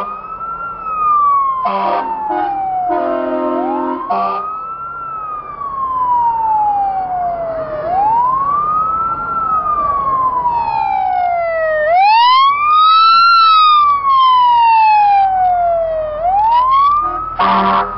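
Fire engine siren wailing, each cycle rising quickly and falling slowly, about every four seconds, with short blasts of the fire engine's horn near the start and again near the end.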